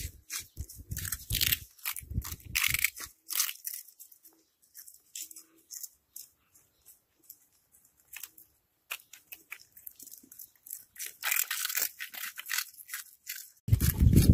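Cats crunching and chewing puffed corn snack balls, a rapid patter of small crisp crackles that thins out for a few seconds mid-way and then picks up again. Low thumps come in the first few seconds, and the loudest one arrives near the end.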